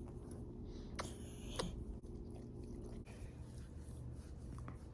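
Faint chewing, with two sharp clicks about a second in and just after.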